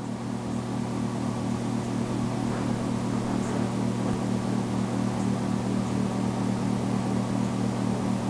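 A steady low mechanical hum with a constant pitch and an even hiss over it.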